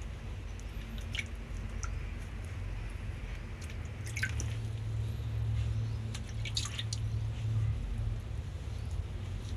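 Water dripping and splashing from a wet sponge and the wet fur of a baby monkey being bathed, heard as scattered short drips over a low steady rumble.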